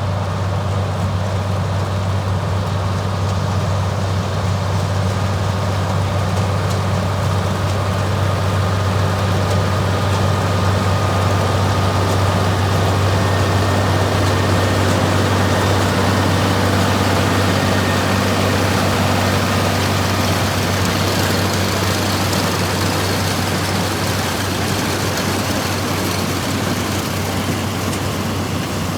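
John Deere 9670 combine running steadily while harvesting corn: a steady low drone with a faint high whine over it.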